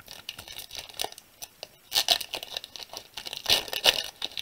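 Foil wrapper of a Pokémon trading-card booster pack being torn open and crinkled by hand, in irregular crackling bursts that are loudest about two seconds in and again near the end.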